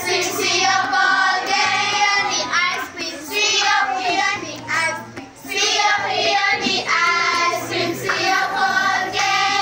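A group of children singing together in chorus, in steady sung phrases.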